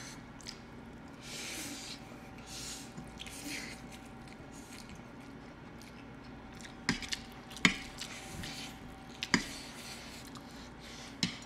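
People slurping and chewing spicy instant noodles, wet mouth noises with soft slurps in the first few seconds. A few sharp clicks of chopsticks on plates come later.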